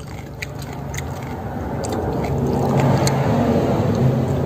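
Chewing with small wet mouth clicks, over a low steady hum that slowly grows louder.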